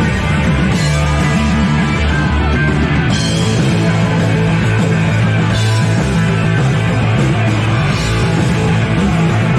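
Punk rock band playing live, loud and steady, with heavy bass and drums and brighter crashes every couple of seconds.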